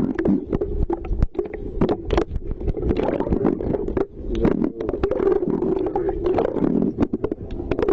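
Water sloshing and rumbling, heard muffled through a camera held underwater, with a steady low hum and frequent small knocks and clicks.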